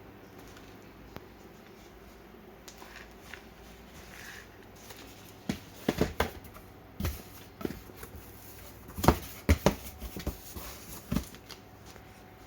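Packaging being handled: a quiet stretch, then a run of sharp crinkles and knocks from about halfway through, the loudest a little past the middle.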